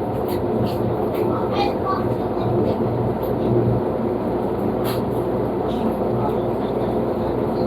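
Panasonic washing machine running its blanket cycle: a steady motor hum with churning noise. Faint background voices sound in and out.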